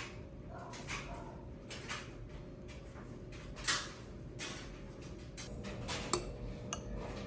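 Scattered clinks and knocks of dishes and utensils being handled, over a faint steady hum.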